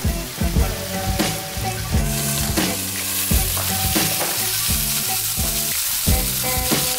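Chicken wings sizzling as they fry in oil in a pan on a gas stove, the sizzle growing louder about two seconds in.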